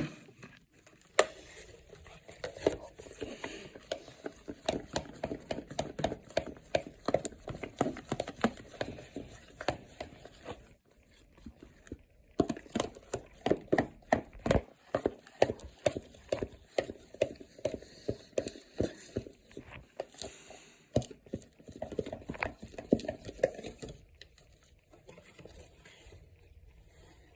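Fluffy slime mixture (glue, shaving cream and activator) being stirred in a bowl: quick, repeated wet strokes, a few a second. The stirring pauses briefly about halfway and thins out near the end.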